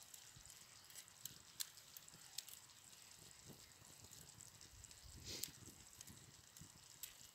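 Faint simmering of chicken in tomato-chili sauce in a frying pan over a campfire, with scattered sharp clicks and crackles as tongs turn the meat. A short louder noise about five seconds in.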